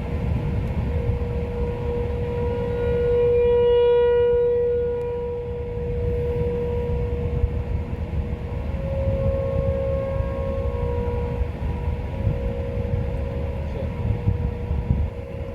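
Outdoor tornado warning siren wailing one steady tone, swelling louder and fading as it sweeps around, sounding the tornado warning. A constant low rumble runs underneath.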